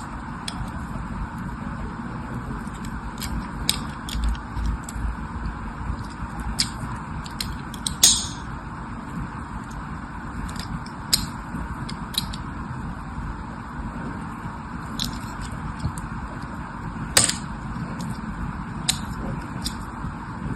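Handling noises: scattered sharp clicks and crackles over a steady low hum and hiss, with two louder snaps, one about eight seconds in and one near the end.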